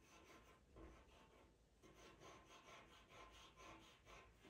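Pastel pencil scratching on Pastelmat paper in short, quick fur strokes, about two a second, faint.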